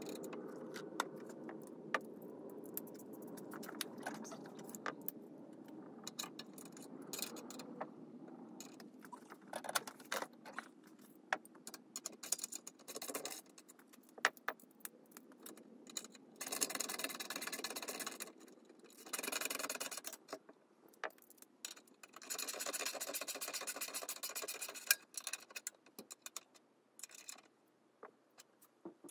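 Metal hand tools and bolts clinking and jangling while a moped engine is bolted to its frame: scattered sharp clicks, with several stretches of dense rapid clicking from about halfway in.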